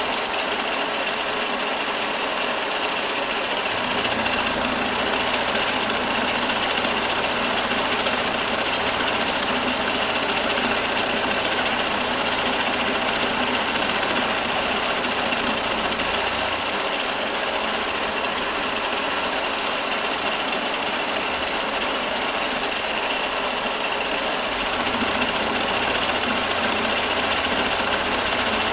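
Milling machine running steadily while milling metal, a dense mechanical whir with a high steady tone. A deeper hum comes in about four seconds in, drops out a little past the middle, and returns near the end.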